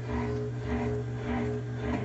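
Consul Facilite CWG11 washing machine's electric drain pump humming steadily as it pumps out the water before the spin cycle.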